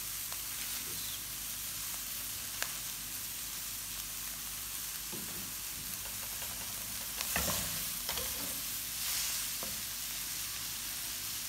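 Shredded cabbage, onion, carrot and capsicum sizzling steadily in hot oil in a stainless steel wok, stir-fried briefly to soften them. A wooden spatula clicks and scrapes against the pan, loudest about seven seconds in and again near nine seconds.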